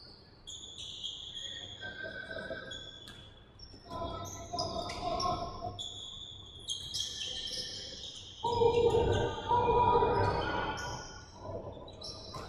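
Basketball game on a hardwood gym floor: many short, high sneaker squeaks, with players shouting, loudest for a couple of seconds past the middle, and the ball bouncing in the large hall.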